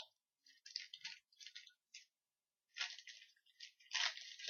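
Faint crinkling and rustling of a trading-card pack's foil wrapper as it is torn open and handled, in several short bursts with brief pauses.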